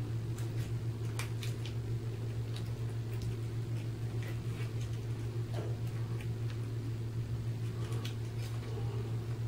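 Steady low hum of equipment in a small room, with scattered light clicks and rustles from gloved hands handling a rubber toe tourniquet.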